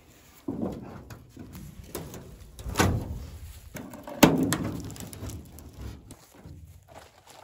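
Michi-Craft aluminium canoe being tilted and set on its side, the hull knocking and scraping against the ground and tree: three knocks, the loudest a little past four seconds in, each followed by scraping.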